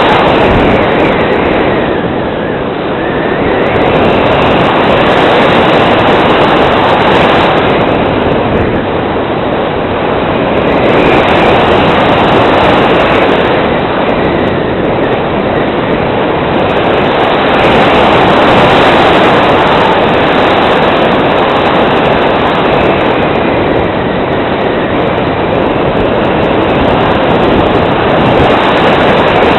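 Rushing airflow buffeting the microphone of a camera mounted on a radio-controlled glider in flight: a loud, even roar with no motor tone, swelling and easing every few seconds.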